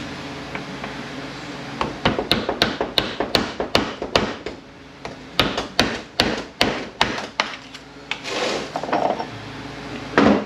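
A run of quick hammer blows on a 231J transfer case, about two or three a second with a short pause midway. The blows are knocking loose a part that is stuck and won't let go.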